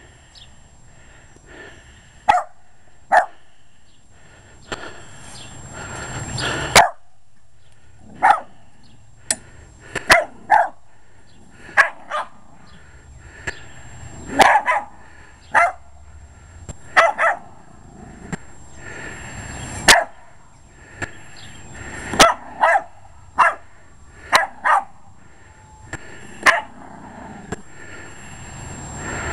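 Jack Russell Terrier barking at a lawn mower: about twenty sharp barks, irregularly spaced and some in quick pairs. Twice a rush of noise builds and then cuts off suddenly.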